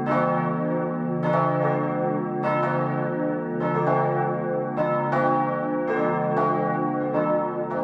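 Several church bells ringing together in a full peal. The strikes come in close pairs about every second, and their long ringing tones overlap into one continuous sound.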